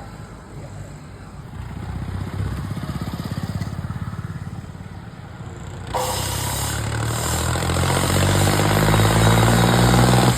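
Tractor diesel engine running through a newly fitted silencer with a steady exhaust note. About two-thirds of the way in it gets suddenly louder, and its pitch then climbs steadily as the engine speeds up.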